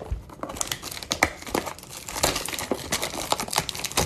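Crinkly plastic packaging crackling continuously as a baseball-card blaster box is opened and its wrapped card packs are pulled out by hand.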